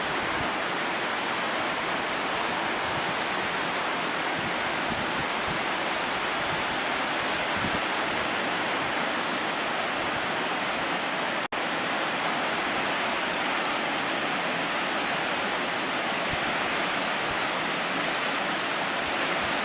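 A waterfall's steady rushing noise, broken for a split second about midway.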